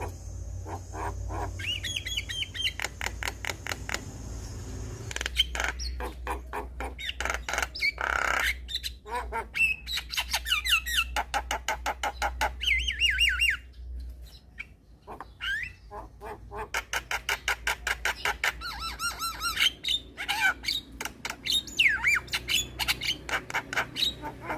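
Javan myna (jalak kebo) singing: a fast, varied stream of harsh chatter, rapid clicking runs, squawks and short gliding whistles, easing briefly about two thirds of the way through before resuming. A low steady hum sits beneath the first half.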